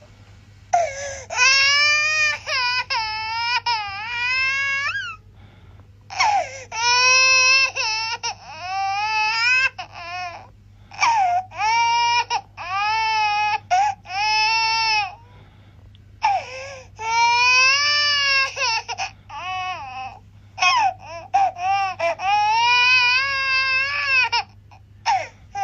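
Infant crying: long wailing cries that rise and fall in pitch, in bouts of one to four seconds broken by short gasps and pauses.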